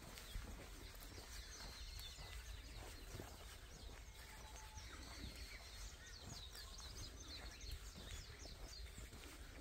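Wild birds chirping faintly: short high chirps and quick falling notes, with a run of them about two-thirds of the way through, over a low steady rumble.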